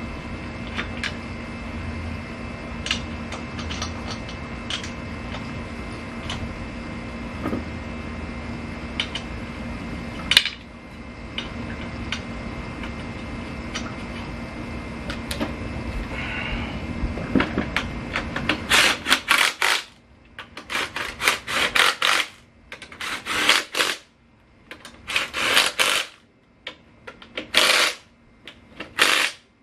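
A few small metal clicks and clinks as an ATV wheel is fitted back on its hub, over a steady faint hum. About two-thirds of the way in, a cordless power tool runs in a string of short bursts, driving the wheel's lug nuts tight.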